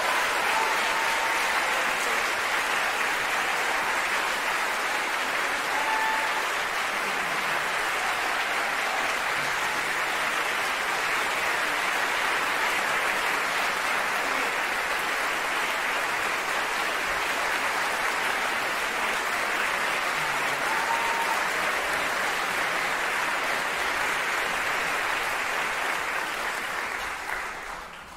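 A large theatre audience applauding steadily, dying away near the end.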